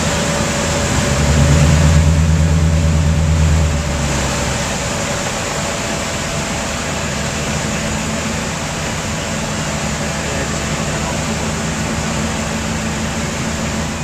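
Tugboat diesel engines running with a low drone under a steady rush of wind and water along the hulls, as the tugs push through broken river ice. The engine note swells louder for about three seconds, starting about a second in.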